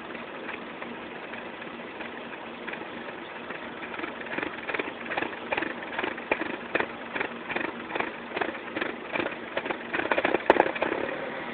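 2007 Mini Cooper engine idling roughly, with an uneven pulsing about two or three times a second starting about four seconds in and a louder surge near the end. The idle hunts as if on the verge of stalling, which the owner doubts is normal.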